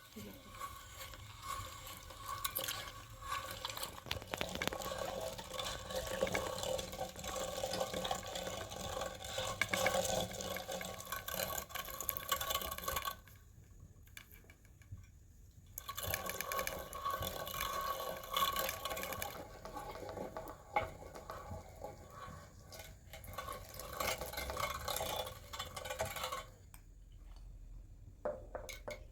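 Water pouring into a container, stopping for about three seconds midway and then running again, with a few light clinks near the end.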